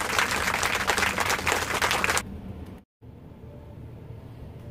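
A dense crackling hiss that stops abruptly about two seconds in, then, after a brief silent cut, faint room tone.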